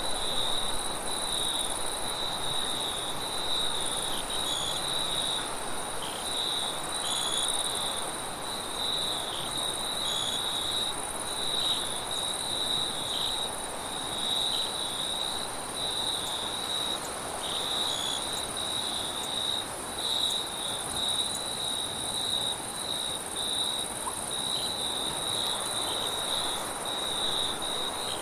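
Crickets chirping at night in a continuous high trill that dips briefly now and then, with a second, higher insect whine above it, over a soft steady rush of wind.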